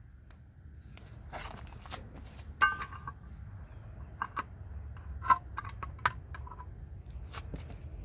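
Small metal clicks and clinks as a wire retaining clip is fitted onto a brake-shoe roller and the roller pressed into a new semi-truck brake shoe. A few short high squeaks come among the clicks, over a low rumble.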